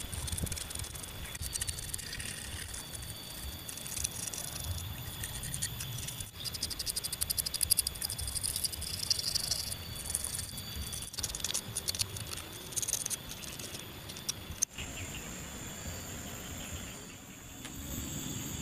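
Insects chirping and trilling in several high, steady tones, with a rapid pulsing trill through the middle and abrupt changes where the sound cuts.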